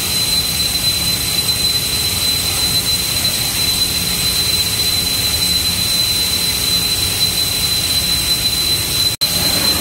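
Haas EC550 horizontal machining center running, its spindle moving the tool about the fixture: a steady high whine over an even mechanical hiss and low hum. The sound cuts out for an instant near the end.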